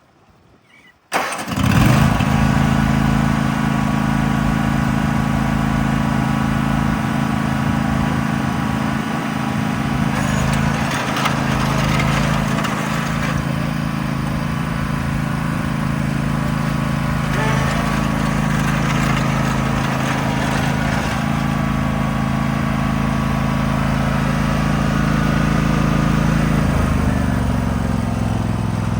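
Husqvarna YTH1542XP ride-on lawn mower engine coming in suddenly about a second in and then running steadily, its pitch dropping a little near the end.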